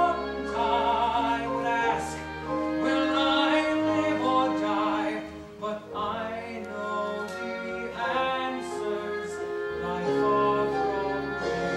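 A male singer holding long notes with vibrato in a slow musical-theatre ballad over orchestral accompaniment, heard unamplified from the audience.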